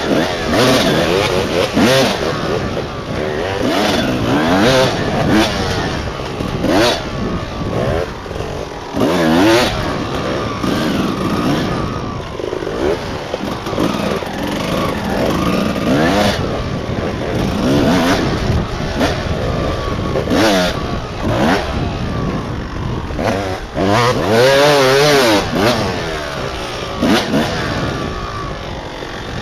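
Two-stroke 250 cc dirt bike engine, heard from the rider's helmet camera, revving up and down again and again as the bike is ridden hard, with short breaks between the pulls.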